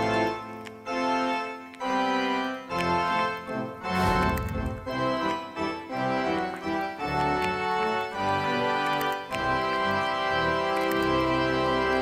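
Background music: keyboard chords in an organ-like sound over bass notes, the chords changing every second or so.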